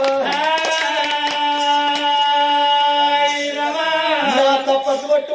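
A singer's voice in an Oggu Katha Telugu folk ballad, holding one long steady note for about three and a half seconds, then moving on with bending pitch near the end.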